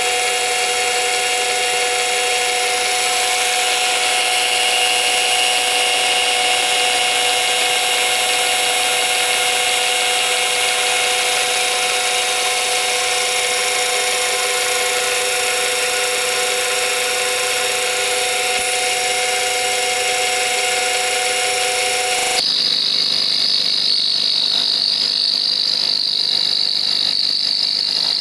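Central Machinery 44991 mini mill with a belt-drive conversion running and cutting a metal bar held in the vise: a steady machine whine with a harsh, hissing cutting noise. About three-quarters of the way through, the sound changes abruptly to a thinner, higher whine.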